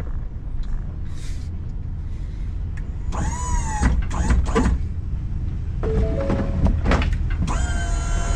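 Tow truck engine running with a steady low rumble. Short high wavering sounds come in about halfway through, and near the end a steady whine of several held tones sets in over it.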